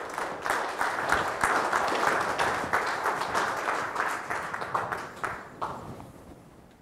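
Audience applauding: a burst of clapping that builds quickly, holds, then thins out over the last couple of seconds before cutting off abruptly.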